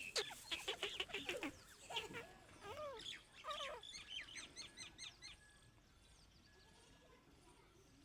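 Birds calling: a busy run of short chirps and curved rising-and-falling calls that stops about five seconds in, leaving only faint background.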